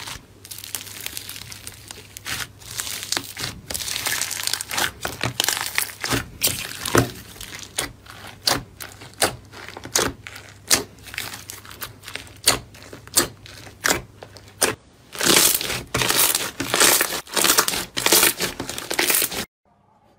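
Hands pressing and squeezing slime mixed with crumbly white chunks, giving crunchy, crackling squishes in quick repeated presses that grow denser near the end. The sound cuts off abruptly just before the end.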